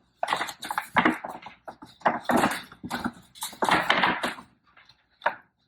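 Irregular bursts of rustling and scraping as a MacBook Pro box and its packaging are handled and opened.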